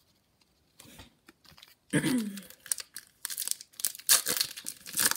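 Foil wrapper of a Bowman baseball card pack being crinkled and torn open. It starts with a few light rustles, then turns to dense, loud crackling from about three seconds in.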